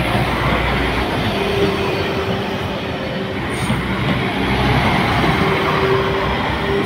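Northern Ireland Railways diesel multiple unit passing at close range, a loud steady rumble of engine, wheels and rails. A thin steady whine comes in twice over it.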